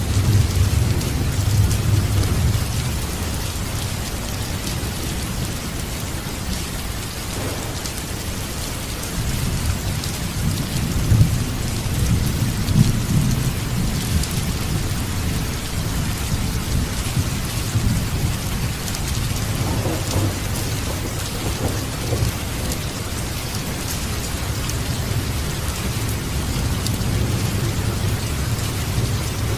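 Steady rain with low rolling thunder that swells three times: near the start, about ten seconds in and about twenty seconds in.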